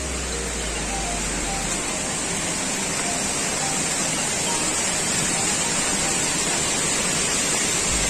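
Steady rush of falling water from a nearby waterfall, growing slightly louder.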